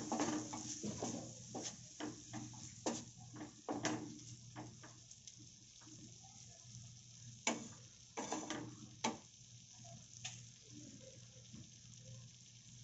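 A spatula scrapes and taps in a nonstick frying pan while a thick onion-tomato masala sizzles softly. The strokes come thick and fast at first and thin out after about five seconds, with a few more scrapes near the middle before only the sizzle is left.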